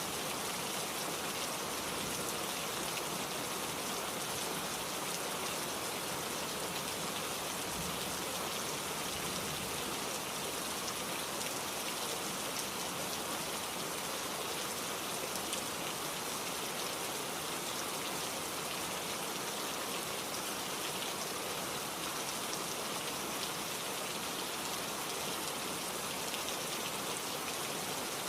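Steady rain falling, with a dense patter of drops on a surface.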